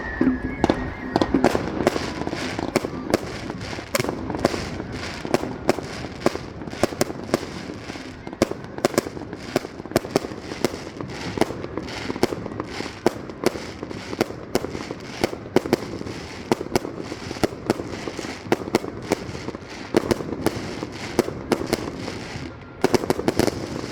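Fireworks going off in a rapid, continuous crackle of many small bursts, with louder bangs scattered through it. The crackle drops off briefly near the end, then resumes.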